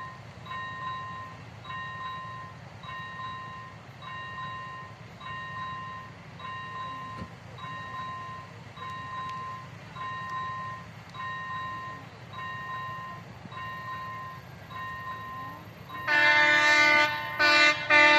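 Level-crossing warning bell dinging evenly, a little under twice a second. About two seconds from the end, a train horn sounds loudly over it: one long blast, then two short ones.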